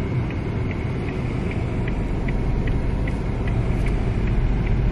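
Steady low engine and road rumble inside a moving car's cabin, with the turn-signal indicator ticking evenly, about two and a half ticks a second, as the car signals to pull in.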